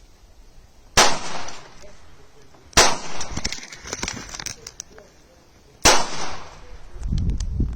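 Three single shots from a .22 LR GSG 1911 pistol, spaced about two and three seconds apart, each followed by a short echo. A low rumble rises near the end.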